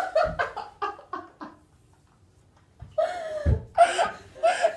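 Two girls laughing: a run of short laughs fading out over the first second and a half, a pause, then breathy laughter starting again with a dull thump partway through.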